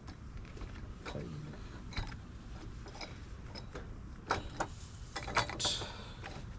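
A few scattered light clicks and knocks of metal parts and tools being handled while a manual tire changer is set up.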